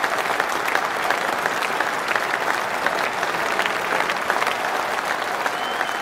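Large cricket-ground crowd applauding steadily, a sustained ovation for a batsman walking off the field.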